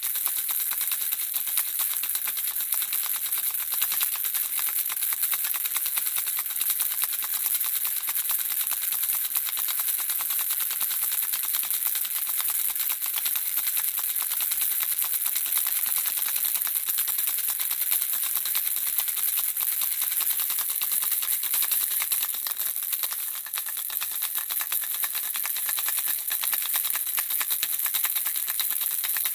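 Handheld baby rattle shaken steadily: a continuous dense clicking of the small pieces inside, high-pitched and unbroken.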